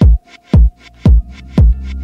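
Electronic dance music with a steady kick drum, about two beats a second, and lighter hi-hat ticks between the beats. A sustained bass line comes in about a second in.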